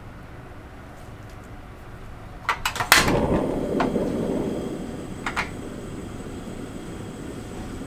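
Portable gas stove being lit: a few clicks of the igniter about two and a half seconds in, then the burner catches with a sudden rush of flame that eases a little and keeps running steadily, with a couple more clicks later on.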